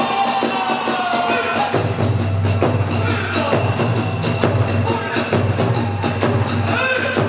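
Kagura accompaniment music: drums and small hand cymbals beat a quick, steady rhythm while a bamboo flute plays a sliding melody over them.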